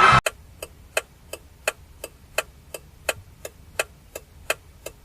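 Clock ticking steadily, about three ticks a second, starting just after loud music cuts off.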